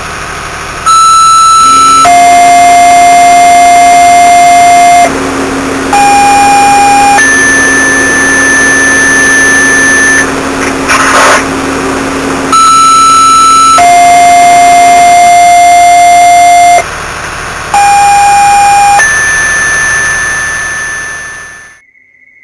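Fire dispatch two-tone paging tones over a radio. Each page is a short high tone followed by a long lower one, then a short tone followed by a long higher one, alerting a station to a call. The sequence plays twice with a burst of static between, over a steady low hum.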